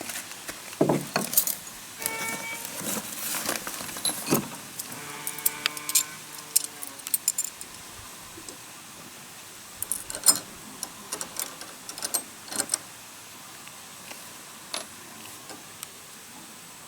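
Irregular clicks and knocks, with a short pitched creak or squeal about two seconds in and a longer one about five seconds in.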